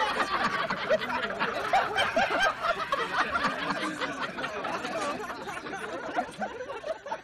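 Many people laughing together, a crowd or laugh-track laugh, slowly fading out.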